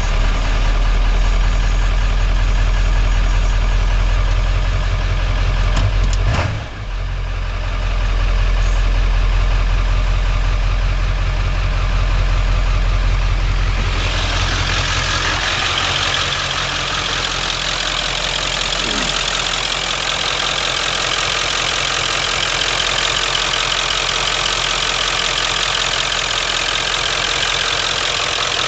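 1997 Ford 7.3 L Power Stroke V8 turbo-diesel idling with the rough idle that the owner has not cured despite replacing many sensors and parts. Its level dips briefly about six seconds in. About halfway through, the deep rumble fades and a brighter hiss grows louder.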